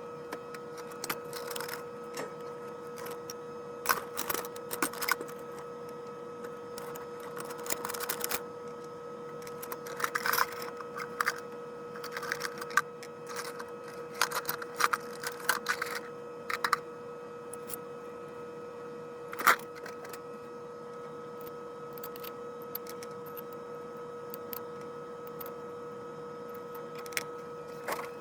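Metal clicks and clinks of Gewehr 88 commission rifle parts being handled and fitted together during assembly, coming in irregular clusters over a steady background hum. The loudest is a single sharp click about two-thirds of the way through.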